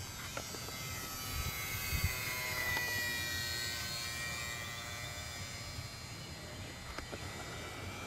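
Micro RC airplane's 8 mm electric motor and propeller, a high buzzing whine that shifts in pitch and swells around the middle as the plane passes, then eases. There are a couple of low thumps about two seconds in.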